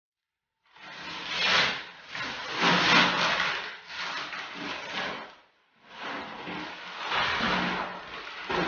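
Heavy wallpaper, loosened by water damage, being peeled off a wall and handled in large sheets: a rustling, tearing paper sound in several long strokes, with a short break about five and a half seconds in.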